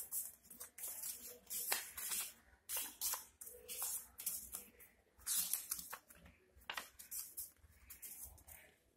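A circle of thick Fabriano art paper being folded and creased by hand: a string of short, crisp paper rustles and rubs at irregular intervals.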